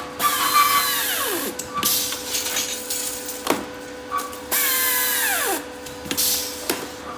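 Pneumatic hand-held strapping tool tensioning straps around a compressed bale, twice: each time its air motor starts with a hiss and a whine that falls steadily in pitch. Sharp clicks come between the two, over a steady machine hum.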